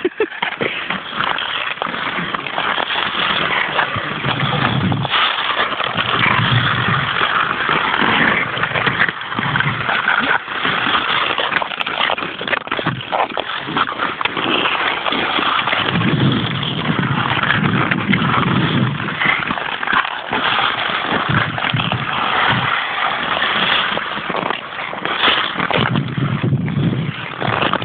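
Ice skate blades scraping and gliding over natural canal ice, a continuous rasping hiss broken by scattered short clicks and scrapes.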